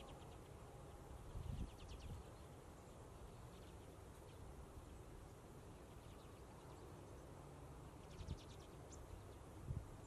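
Faint dry rattling calls of common redpolls, a few short trains of rapid ticks about a second and a half in, near the middle and again near the end, over a low rumble of wind.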